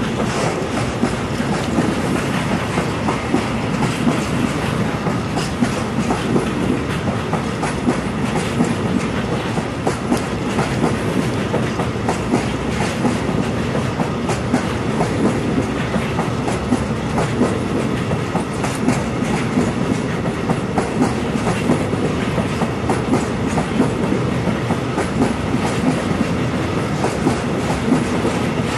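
A long freight train of Slovak open coal wagons (gondolas) rolling past close by: a steady rumble of wheels on rail with dense, rapid clicking and clattering of wheels over the track.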